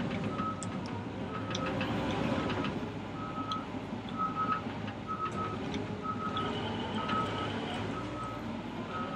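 Cat D6K LGP bulldozer reversing: its backup alarm beeps about once a second over the diesel engine running, with scattered clanks.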